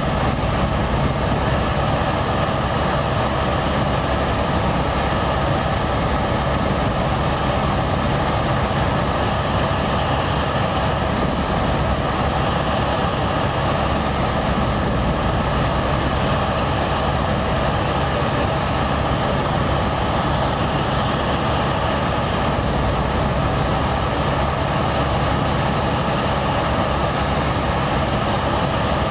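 Helicopter engine and rotor heard from inside the cabin in flight: a loud, steady drone with several held tones.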